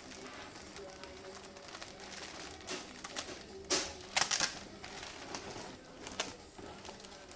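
Hands handling a surgical-mask box and its packaging: irregular crinkling and tapping, with the loudest crinkles a little under four seconds in and again just after four seconds.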